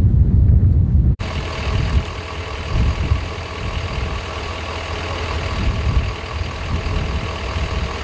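Wind buffeting the microphone, cut off abruptly about a second in. It is followed by a Ford Super Duty fire department truck's engine idling steadily.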